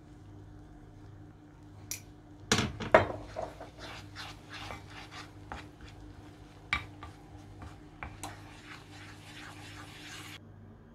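Wooden spoon knocking and scraping against a small metal pan while red pepper powder is stirred into foaming, sizzling melted butter. A few sharp knocks come about two to three seconds in, the loudest near three seconds, then a quick run of taps and scrapes that stops suddenly shortly before the end.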